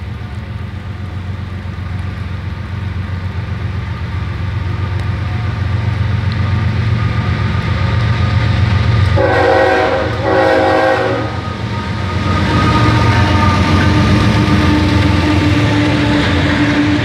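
Norfolk Southern freight train's diesel locomotives rumbling and growing louder as they approach. A little past halfway the locomotive horn sounds two blasts of about a second each, one right after the other. The louder drone of the passing train follows.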